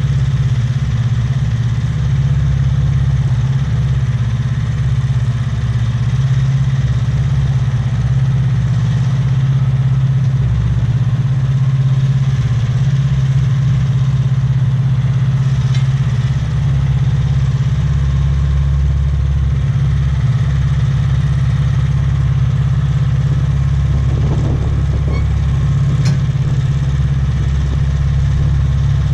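Wood-Mizer LT15START portable sawmill's engine running steadily, with a brief light rattle about twenty-four seconds in.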